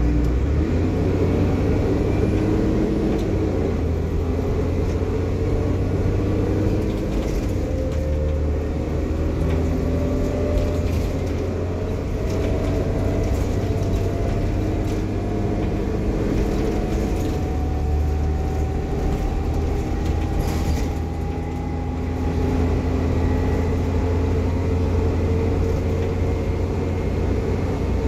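Diesel bus engine and transmission working under load, with a low rumble and a whine that climbs slowly in pitch as the bus gathers speed.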